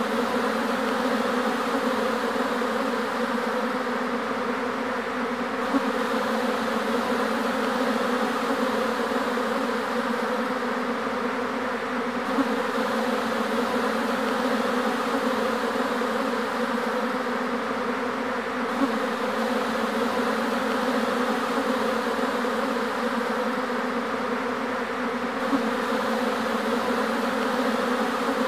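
A swarm of honeybees buzzing steadily, a dense hum of many wings, as the swarm moves into a new wooden box hive. A few brief clicks stand out here and there.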